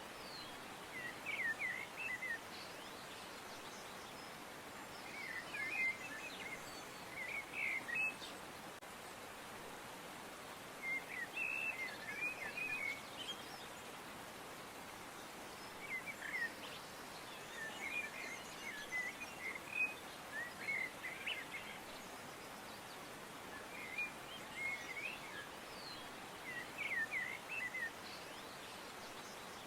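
Small birds chirping in short bursts every few seconds, over a steady outdoor background hiss.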